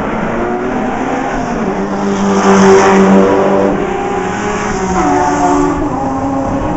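Racing cars at full throttle passing on the straight, several engine notes overlapping. The sound swells to its loudest about three seconds in as a pair of cars goes by close, then rises again a little after five seconds as more cars follow.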